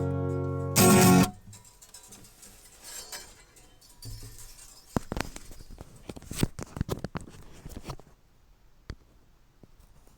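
Guitar strummed once more about a second in, a short chord that is stopped dead, followed by scattered soft knocks and clicks.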